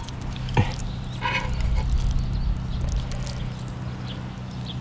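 Eating sounds: chewing with scattered sharp clicks of utensils, over a steady low hum, with a short voiced sound about a second in.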